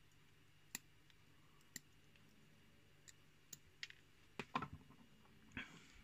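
Faint, scattered small metallic clicks of steel tweezers working inside an Avocet Pioneer Plus brass euro cylinder, picking out its tiny trap pins. The clicks come singly at first, with a quick cluster about four and a half seconds in.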